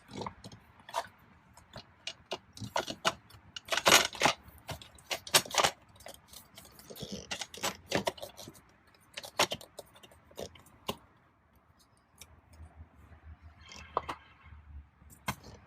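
Plastic steering-column trim being handled and fitted back into place: a run of irregular clicks, knocks and light rattles, busiest in the first half.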